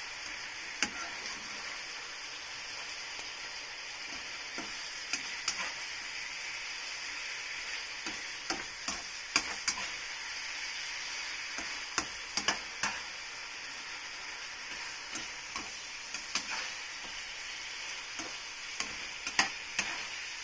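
Shredded roast chicken sizzling in a frying pan while a spatula stirs it, with a steady frying hiss and irregular sharp clicks and scrapes of the spatula against the pan.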